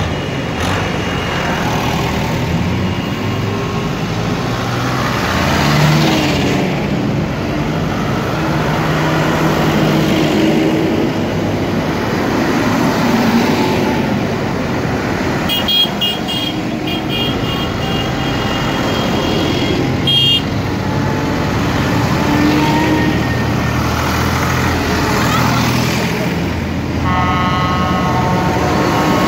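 Diesel farm tractors running as they drive past one after another. Several short horn toots sound about halfway through, and a horn sounds again near the end.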